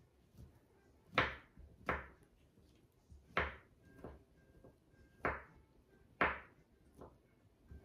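Kitchen knife chopping cooked chicken on a wooden cutting board: about seven uneven knocks of the blade striking the board.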